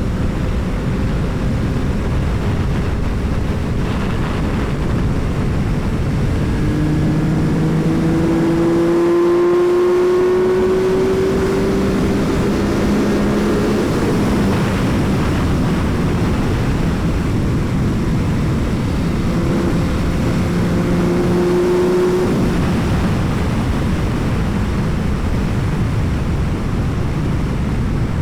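Yamaha R9 sport bike's 890 cc inline-three through an Akrapovič exhaust, ridden at speed under a steady rush of noise. The engine note climbs slowly twice as it pulls: a long rise in the first half and a shorter one about two-thirds of the way through.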